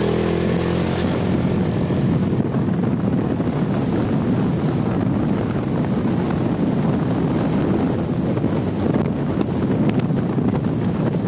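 Motorcycle pulling away, its engine note rising in the first second, then running at speed under heavy wind rush on the microphone.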